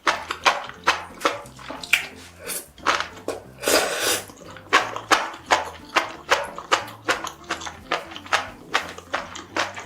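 Close-miked eating: fast wet chewing and mouth smacks, several clicks a second, with one longer noisy stretch near the middle.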